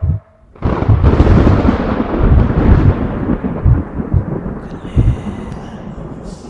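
A loud, deep rumble like rolling thunder starts suddenly about half a second in, with heavy low booms rolling through it, and slowly fades.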